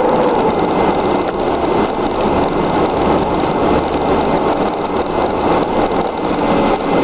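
Fire truck driving at road speed, heard from inside the cab: a steady engine drone mixed with road noise.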